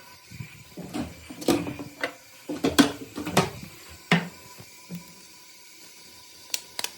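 Knocks and clatters of cups and kitchenware being handled while tea is made, with a few louder knocks in the middle, then a quick run of light clicks starting near the end.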